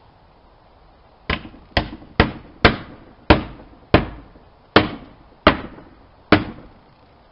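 Hammer blows on wood: nine sharp strikes at an uneven pace, each ringing briefly.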